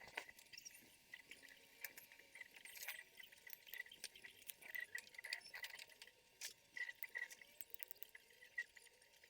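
Faint, scattered small clicks and rustling of hands handling the thin copper wires of a twisted-pair network cable being spliced.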